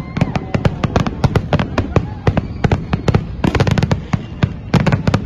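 Aerial fireworks going off in a rapid barrage of sharp bangs and crackles, many a second, with thicker clusters about three and a half seconds in and again near the end.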